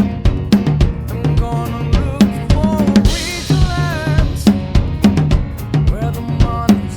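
A rock/pop groove on a drum kit of bass drum, brass snare, toms and Meinl Byzance cymbals, with a steady stream of kick and snare strokes and a cymbal crash about three seconds in. It is played along to the song's backing track, and a sung melody is heard through the middle.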